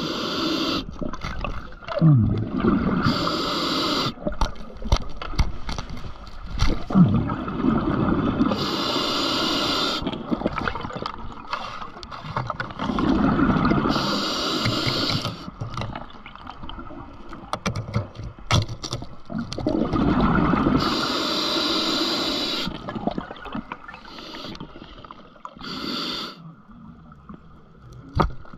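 Scuba diver breathing through a regulator underwater: a hiss on each inhale about every five or six seconds, alternating with a rush of exhaled bubbles gurgling, and scattered clicks and knocks from handling gear.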